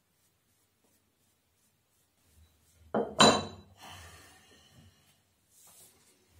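Iron weight plates set down on a stack: two sharp metallic clinks about three seconds in that ring briefly, followed by quieter handling and scraping.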